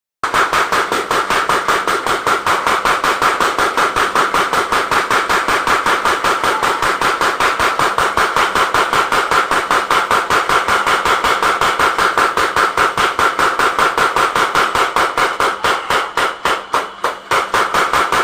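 Blacksmith's mechanical power hammer running, its ram striking in a rapid, steady rhythm of many blows a second. The blows lighten and falter briefly near the end, then return to full strength.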